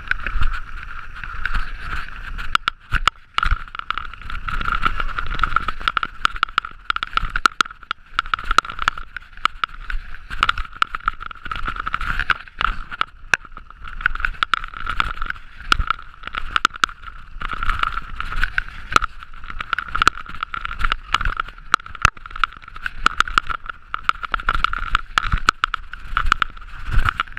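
Mountain bike riding down a rough trail: the bike rattles, with frequent sharp knocks and clatters over roots and rocks, tyres rumble, and a steady high-pitched whirr runs underneath.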